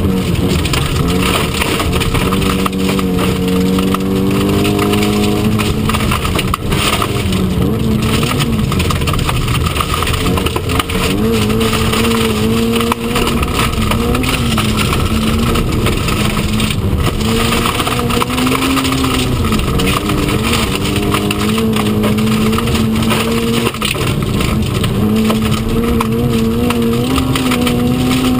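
Historic Mk1 Mini Cooper S rally car heard from inside the cabin at speed on gravel. Its A-series four-cylinder engine rises and falls in pitch with throttle and gear changes, dropping sharply just after the start, over a steady rush of tyre and gravel noise.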